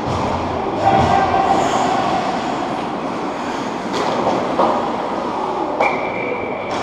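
Ice hockey skates scraping and carving on the rink ice as players skate in on the goal, with sharp clicks of sticks and puck. A steady high tone starts with a click near the end.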